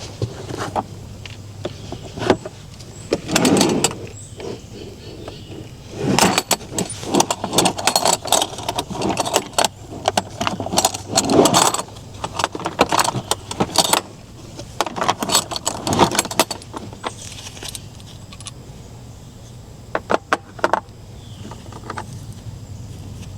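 Metal hand tools and sockets clinking and rattling in bursts of clatter, as someone rummages for a Torx (star) bit.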